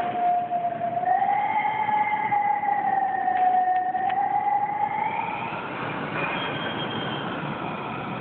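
Strong wind whistling through a building: a single wavering tone that drifts slowly up and down in pitch over a rushing hiss.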